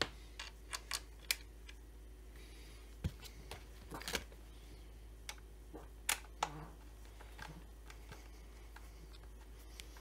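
Handling noise: irregular light clicks and taps, a quick run of them in the first second and a half, then a few more spread out, the sharpest about six seconds in.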